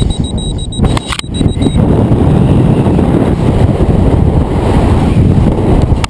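Loud wind rush on a skydiver's helmet-camera microphone through freefall and parachute deployment, with a short break and a few sharp flaps about a second in.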